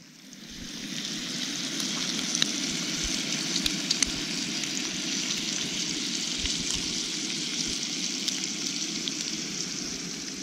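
Bacon sizzling steadily on the griddle of a Coleman propane camp stove, with many small pops and crackles, fading in over the first second.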